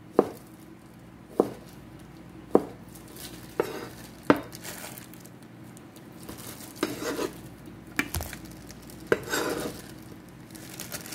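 Cleaver chopping pork belly on a plastic cutting board: sharp knocks about one a second for the first four seconds or so. After that come scraping and rustling as the cut pieces are gathered by a plastic-gloved hand and the cleaver blade.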